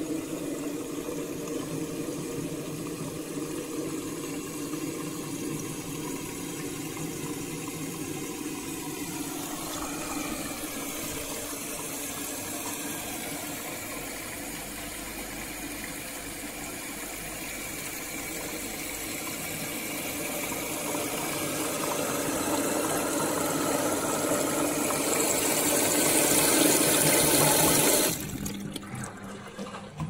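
Bosch Maxx 7 washing machine on its final spin, with water rushing and draining out of it steadily. The sound grows louder over the second half, then drops away suddenly near the end.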